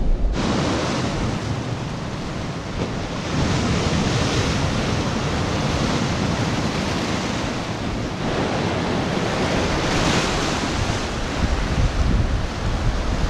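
Sea waves breaking among rocks on a rocky shore and washing back, swelling louder about three and ten seconds in, with a steady low rumble of wind on the microphone.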